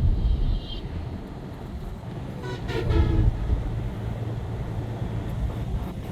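Steady road and engine rumble of a vehicle driving, with a vehicle horn sounding once about two and a half seconds in for just under a second, its pitch dropping slightly.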